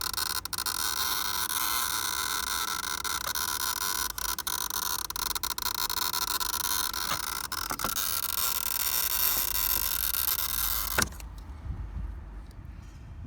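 Car relay buzzing and chattering rapidly, which ends with a sharp click about eleven seconds in. The owner traced the fault to a grounding problem at a corroded, heat-deformed fuse box.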